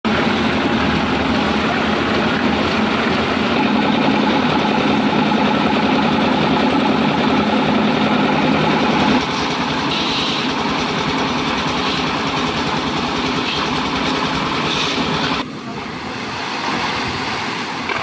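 Engine-driven concrete mixer machine running steadily, its drum turning. The sound drops abruptly about nine seconds in and again near fifteen seconds.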